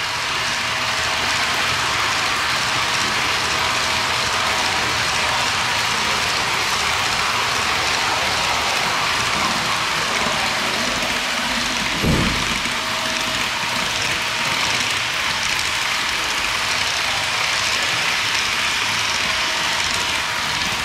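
HO scale model freight cars rolling past close by, their small metal wheels giving a steady rushing clatter on the track. One short thump about twelve seconds in.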